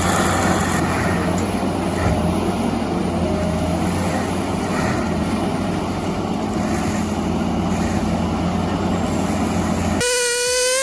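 A heavy machine's engine running steadily under load with a rough, noisy drone. About ten seconds in it gives way abruptly to a chainsaw running at high revs.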